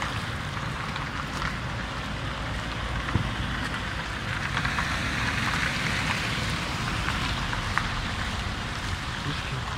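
Steady city street noise of passing traffic, a low rumble and hiss that swells for a few seconds in the middle.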